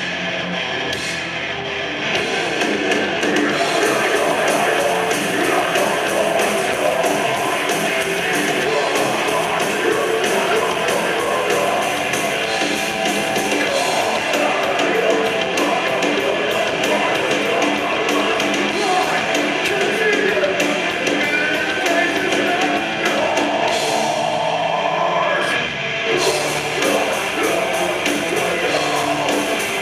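Metalcore song: distorted electric guitars, drums and vocals playing loudly, with a short thinning-out near the end before the full band comes back in.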